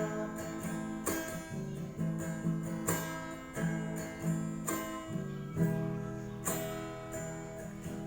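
Acoustic guitar strumming chords in a steady rhythm, about one stroke a second.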